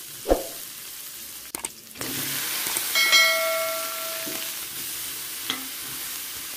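Pork sizzling in oil in a wok while a spatula stirs, scraping and knocking against the metal pan. The sizzle steps up about two seconds in as sliced eggplant goes into the hot oil. A short bell-like chime rings out about three seconds in.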